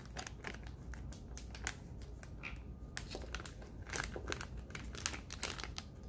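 Plastic microwave steam bag crinkling in the hands, with irregular crackles, as it is tipped to empty cooked corn kernels into a bowl.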